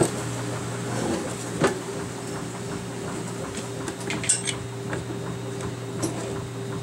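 Scattered metallic clunks and clinks as a Malibu engine's cylinder head, with its exhaust manifold still attached, is turned over on a wooden workbench. A steady low hum runs underneath.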